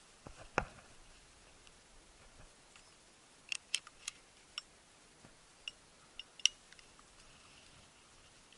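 Scattered short, sharp clicks and ticks from handling and movement as the camera and gun shift, with a bunch of them about halfway through and the sharpest near the end, over a faint background hiss. No gunshot.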